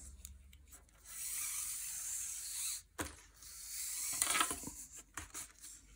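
Hands handling knitting yarn and a fabric tape measure as a length of yarn is pulled out and measured off. There is a soft rustle for about two seconds, a click near the middle, then more rustling.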